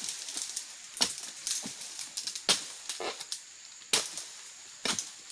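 A blade on a long pole chopping at the frond stalks of an oil palm during pruning: five sharp strikes, roughly one a second, with smaller cracks between them.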